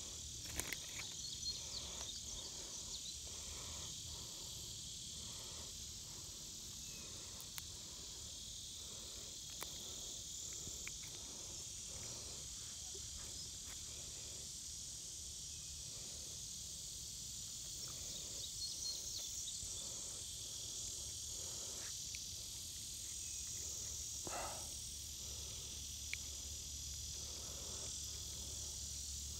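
Steady, high-pitched chorus of insects, an unbroken hiss-like drone, with a faint low rumble underneath and a few soft clicks.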